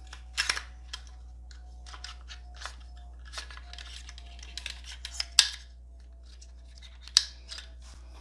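Metal clicks and light clacks from an AR-15 upper receiver being taken apart by hand, as the charging handle and bolt carrier group are slid back and out. The sharpest clacks come about half a second, five and a half seconds and seven seconds in.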